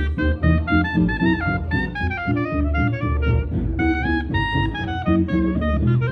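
Jazz band music: a lead melody in quick stepping notes over a bass line and drums.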